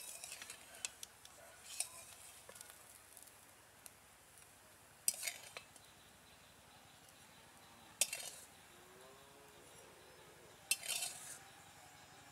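Steel spatula scraping and clinking against a steel karahi (wok) while lifting fried spinach omelets out, in a few short, separate strokes: about two seconds in, at five, at eight, and a longer scrape near the end.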